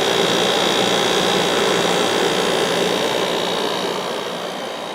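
Sanyo compressor of a 1995 Kenmore 5,450 BTU window air conditioner running steadily under pressure, a constant hum with a thin high whine over it. The fan runs along with it on high speed.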